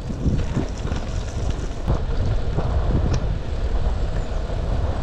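Wind buffeting the microphone as a low, steady rumble while riding a bicycle, with faint knocks from the ride.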